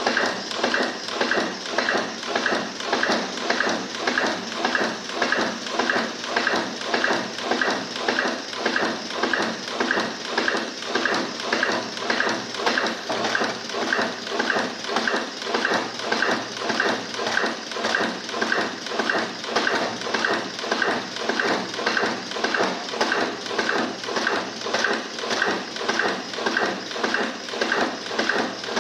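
Through-hole auto insertion machine running, its insertion head cycling in an even, fast rhythm of about two strokes a second as it places components into a circuit board.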